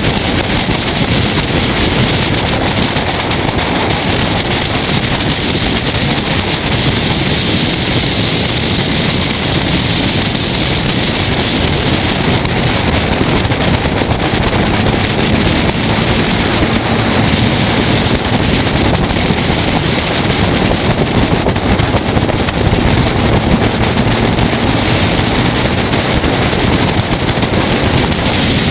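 Race car driving at speed on a circuit, heard through a camera mounted on its bonnet: steady rushing wind on the microphone, with the engine running under load beneath it.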